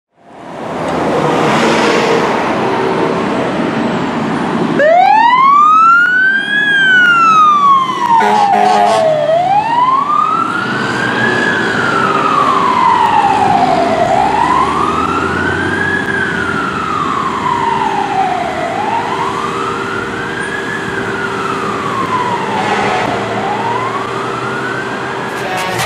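Fire engine siren wailing, rising and falling about once every four and a half seconds. It starts about five seconds in, after a few seconds of loud truck and traffic noise.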